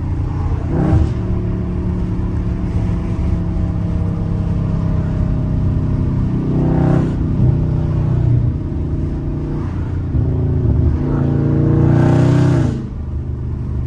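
Catless Dodge Charger Scat Pack's 6.4-litre HEMI V8 exhaust heard from inside the cabin, droning at part throttle as the car slows. Engine speed rises and falls briefly a few times, and the loudest swell comes near the end before it drops off suddenly.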